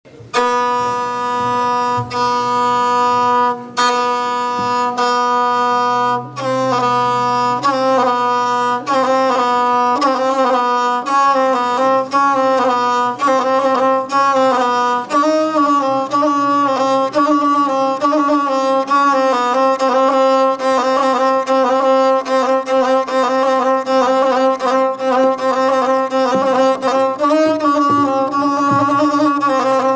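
Gusle, the single-stringed bowed folk fiddle, played solo: a few long held bow strokes on one note for the first six seconds, then a quick melody of short ornamented notes, the instrumental opening of an epic song.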